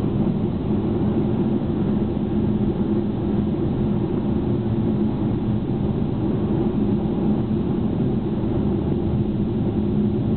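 Car cruising at highway speed, heard from inside the cabin: a steady drone of tyre and engine noise with a low hum.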